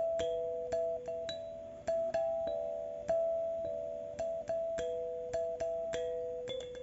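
Instrumental music: a slow keyboard melody of clear, bell-like notes, about two a second, each struck sharply and left to ring and fade.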